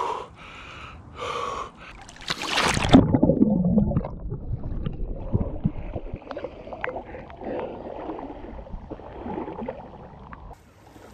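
A man taking sharp, deep breaths in cold river water, then a loud splash about two seconds in as he dunks under, followed by water sloshing around him while he gasps and pants from the cold shock.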